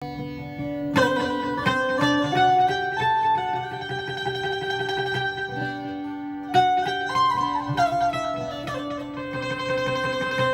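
Indian banjo (bulbul tarang), a keyed, plucked string instrument, playing a melody of ringing notes, with acoustic guitar and hand drums accompanying. Loud new phrases strike about a second in and again past the middle.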